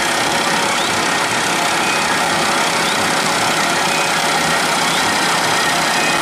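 Rice combine harvester running steadily, its diesel engine and threshing machinery making an even mechanical din.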